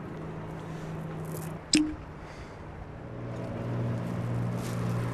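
A single short, sharp sound effect a little under two seconds in, as the genie vanishes into the glass bottle, over a steady low hum that gets louder about three seconds in.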